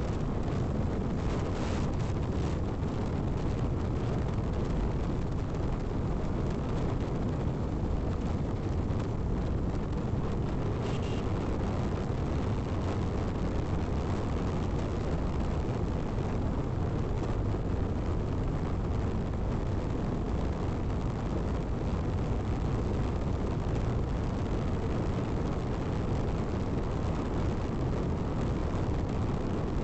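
Steady wind rush and engine noise from a Bajaj Pulsar NS200 motorcycle being ridden along an open road, heard from the rider's position.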